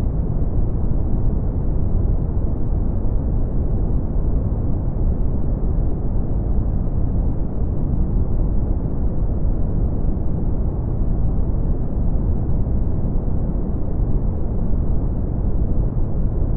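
Steady brown noise: an even, deep rushing rumble with no high hiss, unchanging throughout.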